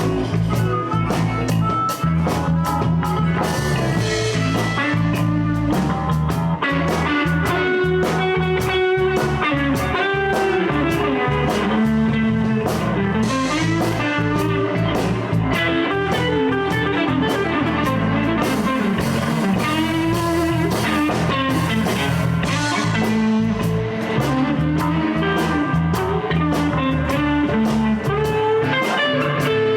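Live electric blues band playing an instrumental break in A: a lead guitar solo with bent notes over bass and drums.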